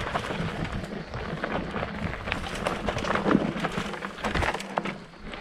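Specialized Levo electric mountain bike riding down a loose, rocky trail: the tyres crunch over stones, and the bike clatters with many irregular small knocks as it goes over the bumps.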